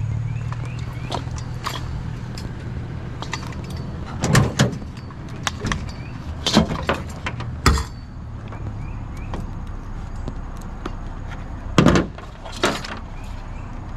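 Scrap metal items being handled and loaded, a few sharp clanks and knocks, the loudest about midway and near the end, over a steady low hum of an idling vehicle engine.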